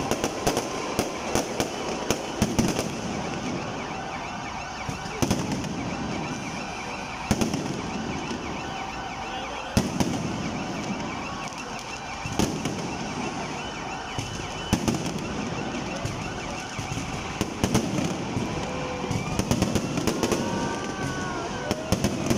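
An aerial fireworks display: shells bursting in a rapid, irregular string of bangs over continuous crackling, with a few brief whistling glides near the end.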